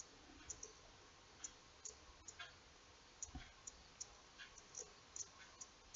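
Near silence broken by faint, irregular small clicks, about one every half second.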